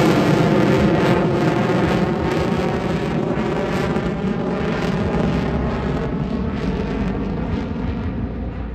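F-22 Raptor's twin F119 turbofan jet engines at high power, loud and fading steadily as the jet moves away.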